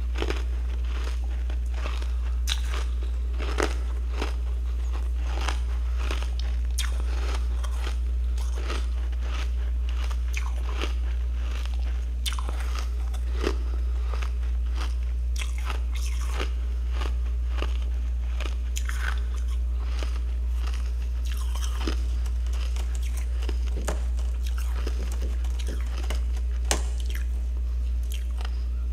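Frost chunks from a freezer being bitten and chewed, crisp crunches coming at irregular intervals, sometimes several in quick succession, over a steady low hum.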